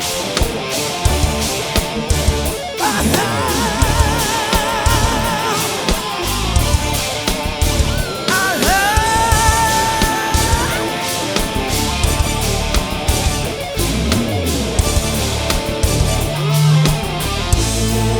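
Heavy rock band playing an instrumental break: an electric lead guitar holds long notes with a wide vibrato, then, about eight seconds in, bends up into a long sustained note, over a drum kit.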